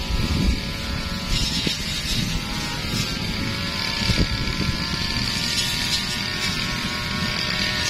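Brush cutter engine running steadily at high speed, with a few short knocks about half a second, one and a half seconds and four seconds in as the blade strikes wood.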